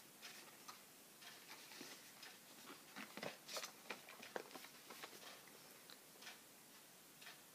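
Faint rustling and flicking of paper pages as a book is leafed through, with scattered soft ticks.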